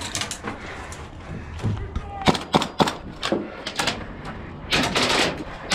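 Airsoft guns firing sharp single shots, three in quick succession around the middle, then a short noisy burst near the end.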